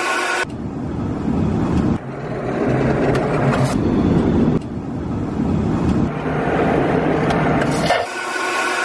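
Airliner cabin noise in flight: a steady low drone with hiss, broken by several abrupt cuts. Right at the start and again about eight seconds in, it gives way to a brighter, thinner rushing hiss in the aircraft lavatory.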